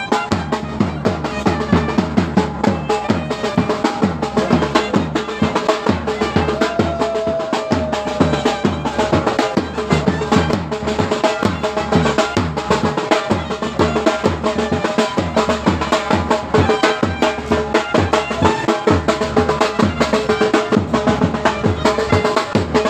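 Traditional Pashto folk music played on traditional instruments: a fast, steady drum rhythm under a sustained melody line, with a brief sliding note partway through.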